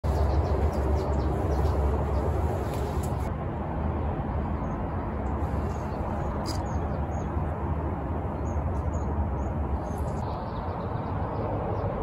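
Small birds chirping now and then over a steady low background rumble.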